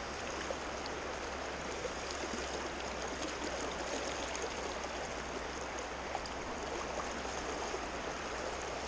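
Creek water running steadily over rocks, an even rushing hiss with no change.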